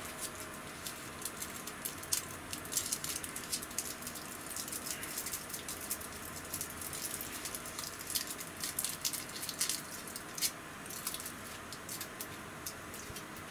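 Hands handling a small folding metal pocket stove and crinkling and tearing open a packet: a quick, irregular run of sharp crackles and clicks.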